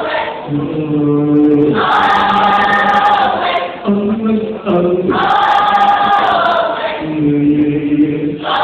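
A choir singing long held notes, higher chords and lower voices taking turns every second or two.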